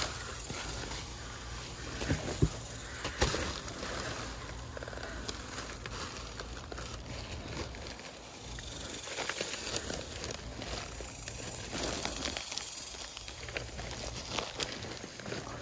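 Plastic trash bags rustling and crinkling as gloved hands push and pull through them, with a couple of sharp knocks about two and three seconds in.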